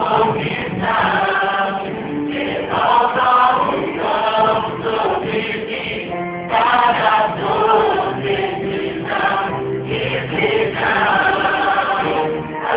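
Gospel music: a choir singing, with no clear words.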